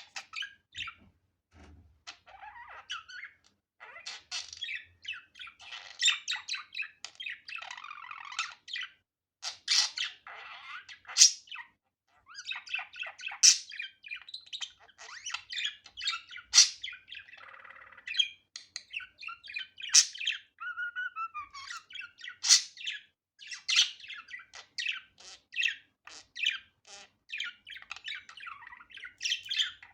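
Budgerigar chattering and warbling: a fast run of chirps and scratchy notes with sharp high squawks, broken by short pauses.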